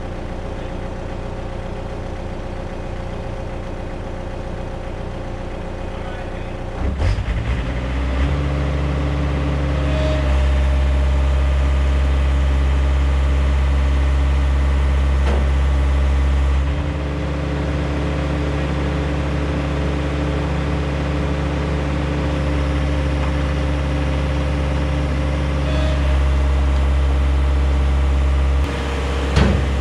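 Komatsu mini excavator's diesel engine running, throttling up about seven seconds in and pulling under hydraulic load as the boom lifts a dump truck bed. The load eases off at around seventeen seconds and builds again later.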